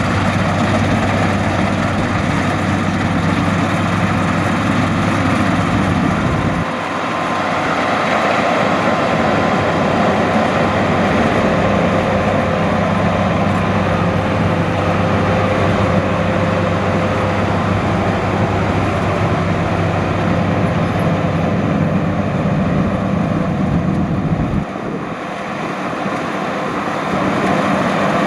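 Rice combine harvester running: a steady, loud drone of engine and threshing machinery with a faint steady whine over it. The deep engine tone cuts away abruptly about seven seconds in and again near the end.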